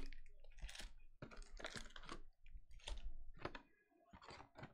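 Faint, irregular clicks and taps of a cardboard trading-card hobby box being handled.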